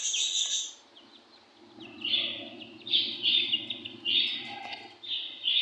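Budgerigars chattering: bursts of high chirps, with a short lull about a second in and then several quick bursts in a row.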